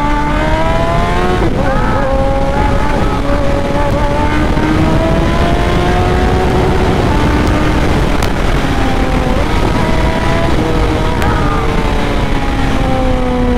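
Suzuki Hayabusa's 1340 cc inline-four accelerating hard: the engine pitch climbs, dips once with an upshift about a second and a half in, pulls on and holds high, then falls gradually near the end as the bike rolls off. Heavy wind rush on the helmet microphone runs under it.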